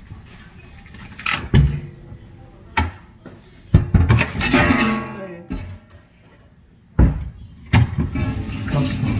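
Acoustic guitar background music with sharp kitchen knocks and clatters every second or two. Near the end a tap starts running steadily.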